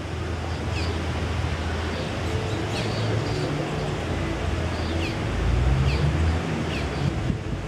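Outdoor ambience: a steady wash of wind or surf with a low rumble, and a bird giving short high chirps about once a second.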